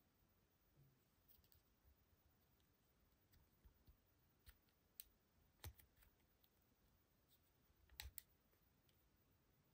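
Near silence broken by scattered faint plastic clicks as the joints and hinged jaw of a SpongeBob SkullPants action figure are moved by hand, with a quick double click near the end.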